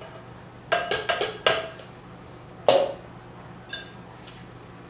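A cup of grated soap knocked several times against the rim of a mixing container to empty it, making hard clinks with a short ring. A quick run of knocks comes about a second in, the loudest one about halfway, and two fainter taps near the end.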